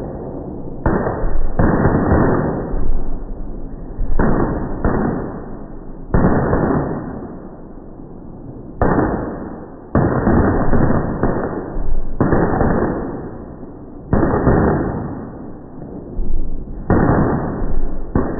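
Firecracker bangs in slow motion: about a dozen sudden, low, drawn-out booms at irregular intervals, each dying away over a second or so.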